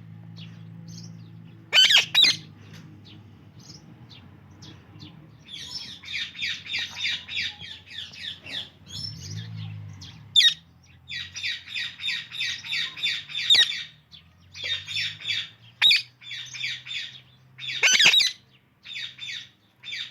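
Indian ringneck and Alexandrine parakeets calling: rapid runs of short chirps, several a second, broken by loud, harsh squawks, the loudest about two seconds in and again near the end.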